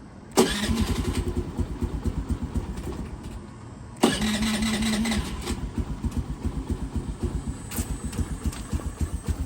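Honda Navi scooters' 109cc single-cylinder four-stroke engines started on the electric starter: one catches about half a second in, a second starter whir and start follows about four seconds in, then the engines idle with rapid, even firing pulses.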